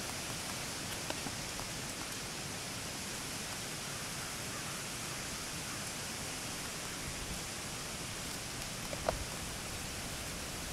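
Steady outdoor hiss with a few faint crackles about a second in and one sharper click near the end.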